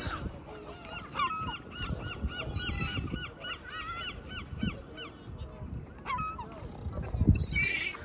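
Gulls calling: a quick run of short, repeated calls, about two or three a second, for several seconds, then a louder call near the end.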